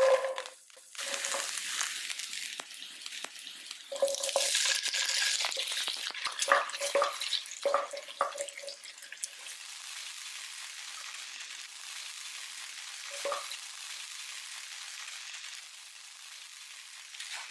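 Garlic, dried chillies and sliced sausage frying in hot olive oil in a nonstick pan, sizzling and crackling as a spatula stirs and scrapes the pan. The sizzle starts suddenly as the ingredients hit the oil and settles to a steadier, quieter hiss in the second half.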